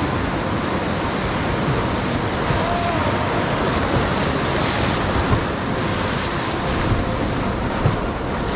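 Ocean surf breaking and washing up a beach, a steady loud rush, with wind buffeting the microphone.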